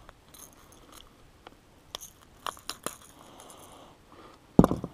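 Handling noise from landing a small bass in an aluminum boat: a few light clicks and taps, then one loud thump near the end.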